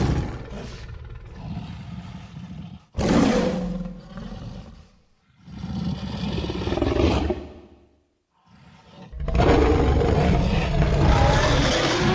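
Giant-gorilla creature roar sound effects, mixed from film monster roars. There are four separate roars: one tails off at the start, a sudden one comes about three seconds in and dies away, another follows around six seconds, and a long, steady roar begins about nine seconds in.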